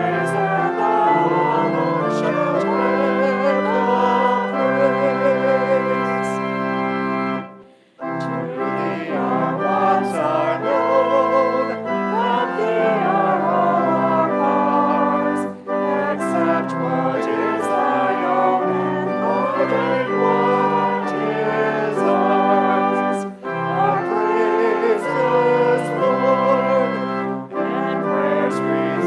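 Church organ music: sustained chords played in phrases, with short breaks about 8, 15.5 and 23 seconds in.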